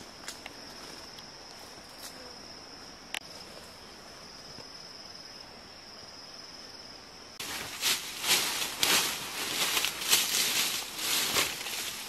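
A steady high-pitched insect buzz with a few faint clicks, cut off abruptly about seven seconds in. Loud, irregular crunching and rustling of dry leaf litter and brush, from someone moving through forest undergrowth, takes over.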